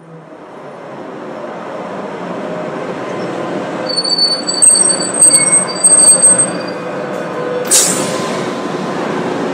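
Tram running on its rails, heard from inside the car: a steady rumble, with high-pitched squealing of the steel wheels from about four seconds in. Near the end a short sharp rush as another tram passes close alongside.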